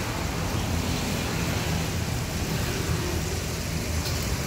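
Hot oil sizzling steadily in a wok as flour-coated pork pieces deep-fry, over a steady low rumble.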